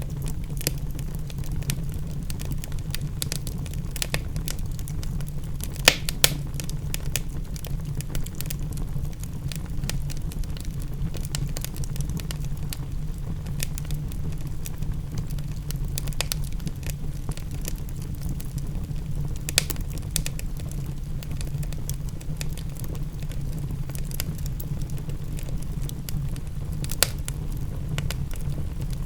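Wood fire in a fireplace crackling, with many small clicks and a few louder sharp pops, over a steady low rumble.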